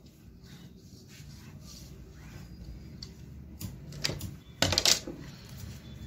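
Light handling noise, then a few sharp knocks and a quick rattling clatter a little over halfway through as wooden tailor's rulers are picked up and set down on the wooden cutting table.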